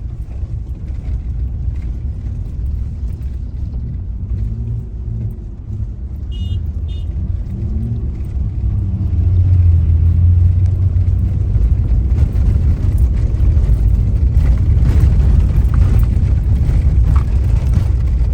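Low, steady road and engine rumble heard from inside a moving car, growing louder about nine seconds in.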